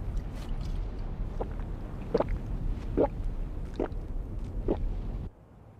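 Cartoon gulping from a bottle of liquor: five swallows, about one every 0.8 seconds, over a low steady rumble that cuts off suddenly near the end.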